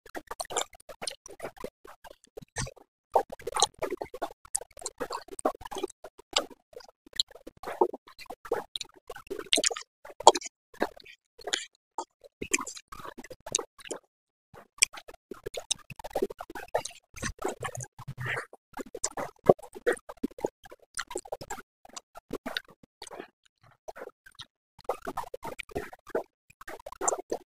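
A person eating spicy Korean noodles: irregular wet mouth clicks, smacks and chewing, with a couple of short pauses.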